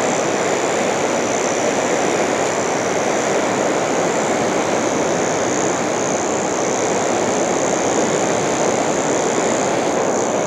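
Steady roar of ocean surf breaking on the beach, with a constant thin high hiss above it.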